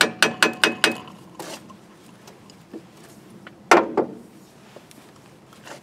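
A hand tool working on car metalwork: a quick run of sharp, ringing metallic clicks, about five a second, through the first second. About two and a half seconds later comes a single louder metal clunk, the loudest sound here.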